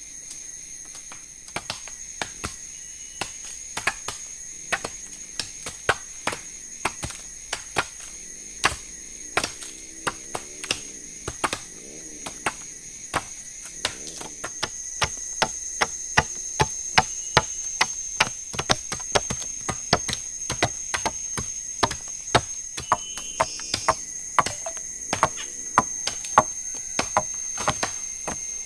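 Repeated chopping strikes of a blade into wood, sparse at first and then about two a second from about halfway through. A steady high whine of forest insects runs underneath.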